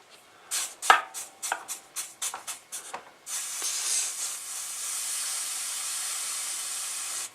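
A quick run of sharp clicks and taps from tools being handled at a workbench, then a steady hiss for about four seconds that cuts off suddenly.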